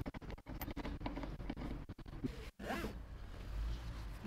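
Faint clicks and scrapes of a seat-mounting bolt being hand-threaded, then seatbelt webbing pulled quickly out of its retractor with a short zipper-like rasp, about two-thirds of the way in and again at the end.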